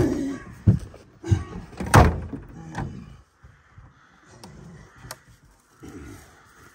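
Knocks and thumps as a long-handled tool is pulled out of a Volkswagen Caddy pickup's cab, then the car door shutting with a slam about two seconds in, the loudest sound. A few light clicks follow near the back of the car.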